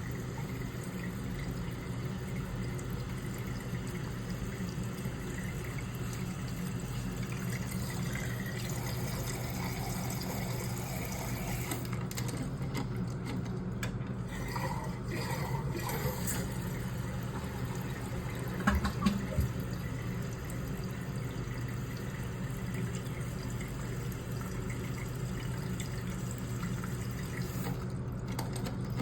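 Water running steadily into a toilet cistern as it fills, with a few sharp knocks about two-thirds of the way through.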